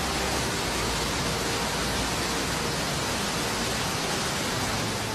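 Fast-flowing river rushing over rocks and rapids: a steady, full hiss of whitewater.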